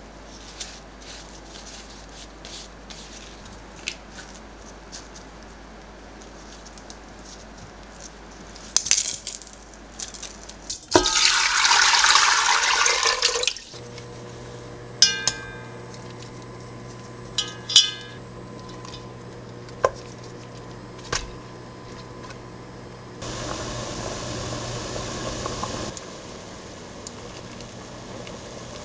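Kitchen preparation sounds: light clicks and handling, then water pouring into a stainless steel pot for about two and a half seconds, followed by sharp clinks of dishes and utensils. After the pouring, a low steady hum runs under the sounds, and near the end there are a few seconds of steady rushing noise.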